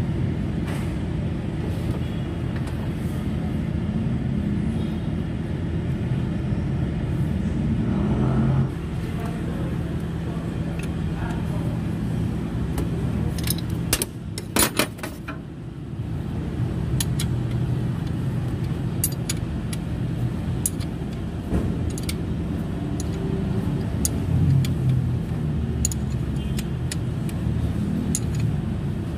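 Hand tools clicking and clinking on metal as the lower bolt of a replacement alternator is fitted and tightened on a Toyota Fortuner engine. Bursts of sharp clicks come about halfway through and recur scattered toward the end, over a steady low rumble.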